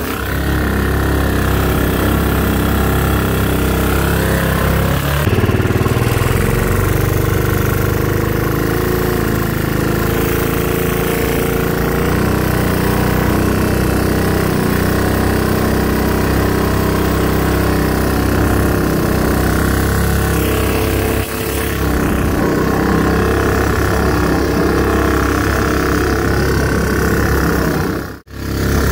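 Mud-Skipper longtail mud motor's modified Honda GX200 single-cylinder engine, fed by a Tillotson TCT mechanical fuel injection carburetor, running steadily while driving the jon boat on the water. The sound cuts out briefly near the end.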